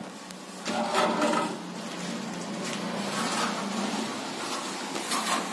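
Straight edge scraping across freshly applied cement plaster on a wall, a rough rasping in uneven strokes that swells about a second in and again near the end.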